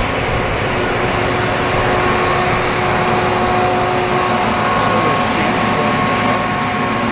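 Logging machinery's diesel engine running steadily under load, with a constant whine over the engine noise.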